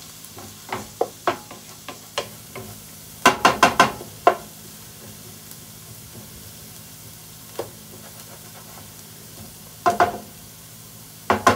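Spoon stirring sautéing onion in a pan of hot oil: scattered knocks and scrapes of the spoon against the pan, loudest in a quick cluster about three seconds in and again around ten seconds, over a quiet sizzle.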